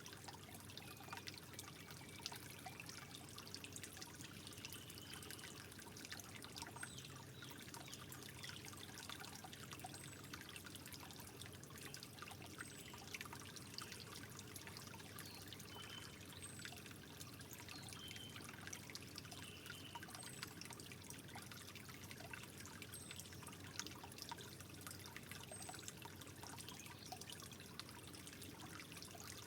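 Water trickling gently and steadily, with fine irregular drips and splashes.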